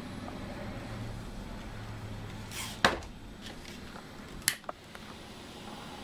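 Two sharp clicks from small tools being handled, the first about halfway in and the loudest, the second about three-quarters in with a small tick just after, over a low steady hum in the first half.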